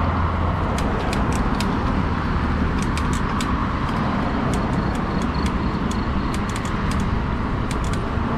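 Steady rushing ride noise on a fat-tire e-bike among road traffic, wind over the microphone and tyre hum, with many short sharp ticks scattered throughout.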